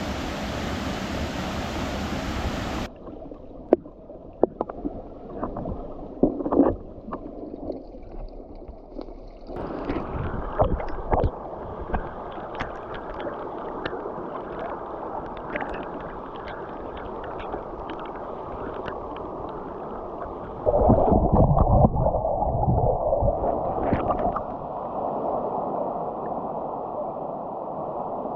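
Rushing water of a waterfall. About three seconds in it turns suddenly muffled and dull, with scattered clicks and bubbling gurgles, as when the microphone goes under water. A louder low gurgling surge comes about two-thirds of the way through.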